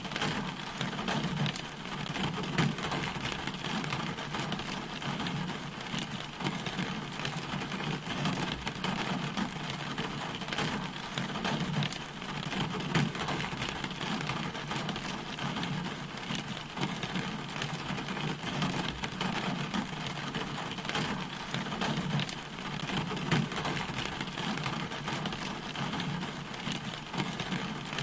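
Steady rain falling, a continuous hiss with many individual drops ticking through it.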